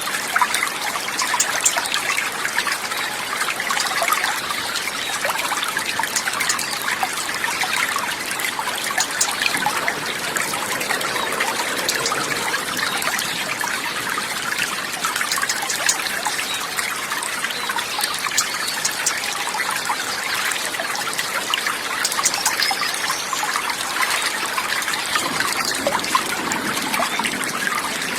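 Water trickling and babbling steadily, like a small mountain stream, with a fine crackling texture and no pauses.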